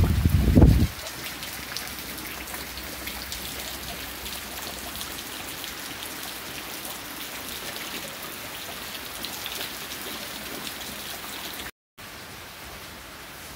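Steady rain falling: an even hiss with many fine drop ticks. There is a loud, uneven low rumble during the first second. Near the end the sound drops out for a moment, and the rain comes back slightly quieter.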